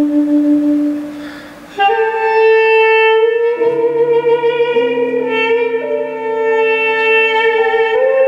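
Armenian duduk playing a slow melody: a long held note fades away, then a new note starts about two seconds in and is held, bending slightly higher near the end. Electric keyboard chords enter underneath about a second and a half after the new note.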